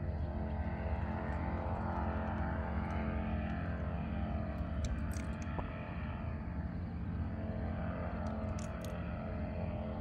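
Powered paraglider (paramotor) flying overhead: its small engine and propeller make a steady droning hum.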